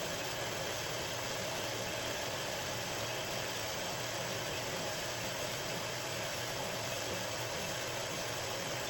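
Metal-cutting bandsaw running steadily, its blade slowly cutting a sixteenth of an inch off a metal wheel spacer.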